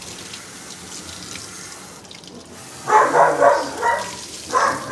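Water spraying steadily from a grooming-tub hand sprayer onto a wet dog. About three seconds in, short pitched vocal sounds break in louder over the water.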